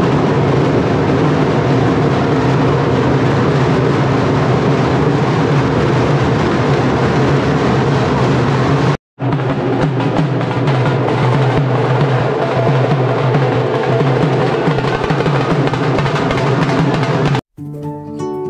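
A strap-slung drum beaten loudly amid a dense crowd din at a Holi dance. The sound cuts out for an instant about halfway through, and near the end it gives way to soft plucked-string background music.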